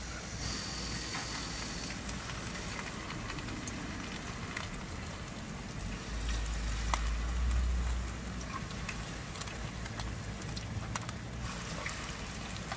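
Battered sweetfish frying in hot oil in a wok on a portable gas stove: a steady crackling sizzle. A low rumble joins it for a couple of seconds around the middle.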